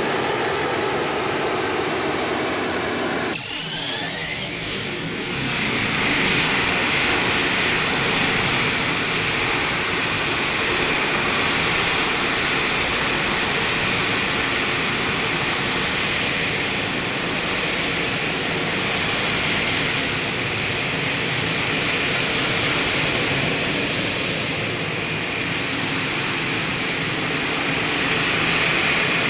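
AV-8B Harrier II's Pegasus vectored-thrust turbofan running at hover power: a loud, steady jet noise with a strong high whine. About three seconds in the sound changes abruptly, with a brief rising whine, then holds steady.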